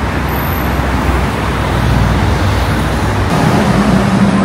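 City street traffic: a steady wash of road noise, with a vehicle engine's low hum growing louder near the end.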